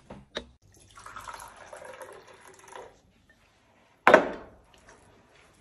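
Tea being poured from a teapot, a splashing pour lasting about two seconds. About four seconds in comes a sudden loud sound that dies away within half a second.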